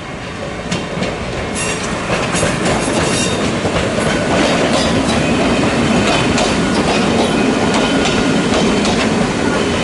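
Ichibata Electric Railway 5000 series electric train (the former Keio 5000 series) approaching and passing close by, its wheels clicking over the rail joints. It grows louder over the first few seconds and stays loud as the cars go past, with a faint squeal from the wheels now and then.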